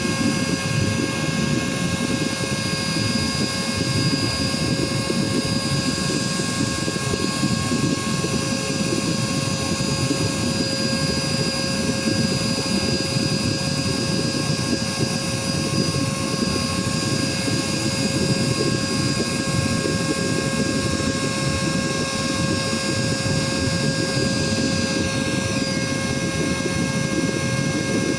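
Cordless vacuum cleaner's motor running steadily on battery power, a constant rumble of airflow with a steady high whine over it.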